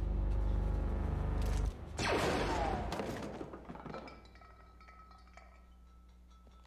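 Film soundtrack: a low, tense music drone cuts off suddenly, and a moment later a sudden loud blaster shot with crackling, shattering debris rings out and dies away over about two seconds, leaving a faint low hum.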